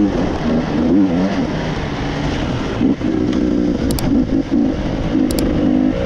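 KTM EXC 300 two-stroke dirt bike engine running under throttle, its revs rising and falling over and over. Two brief sharp clicks come about four and five seconds in.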